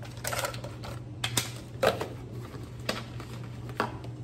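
A plastic ricotta cheese tub being handled: about half a dozen short, light clicks and taps at uneven intervals, over a low steady hum.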